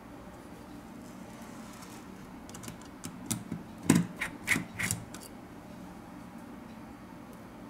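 A precision screwdriver working a tiny screw out of a smartphone's metal bracket: a handful of light clicks and taps of metal on metal about halfway through, against faint room hiss.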